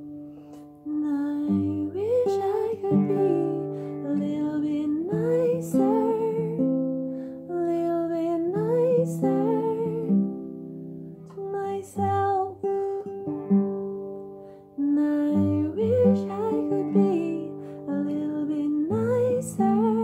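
Acoustic guitar played with a woman singing over it.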